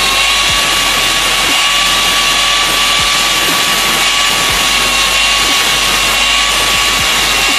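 Angle grinder running free at full speed with a steady high whine. Its disc is not yet touching the steel, so there is no cutting or grinding noise.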